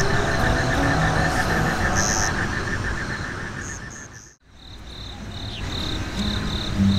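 A chorus of insects, crickets among them, chirping in a fast, even pulse. It fades out about four seconds in and comes back as a different pulsed insect call, with low music tones coming in near the end.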